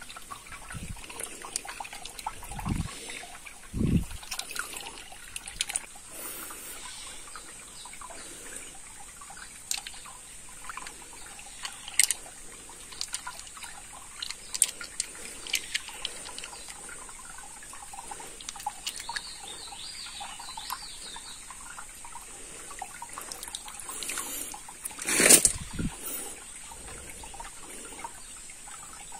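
Shallow stream water trickling, with splashes and small knocks as a hand gropes underwater among stones and leaves picking river snails. One louder splash comes late on.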